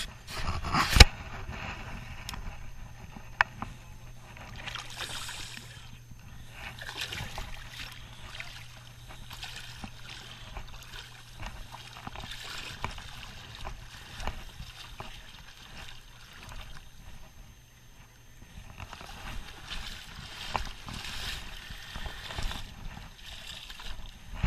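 Water splashing and sloshing in bursts as a hooked striped bass thrashes at the surface while it is landed, with a couple of sharp knocks about a second in.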